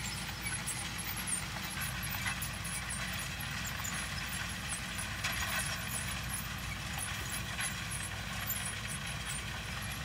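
Tractor pulling a no-till grain drill through wheat stubble, its engine a steady low rumble heard from across the field.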